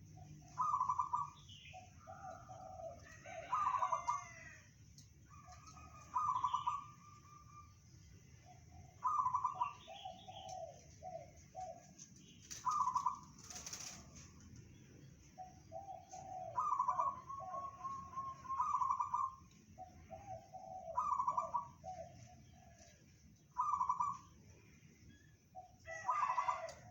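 Zebra dove (perkutut) cooing, about ten times over: each phrase is a loud opening note followed by a quick run of lower notes, repeated every two to three seconds.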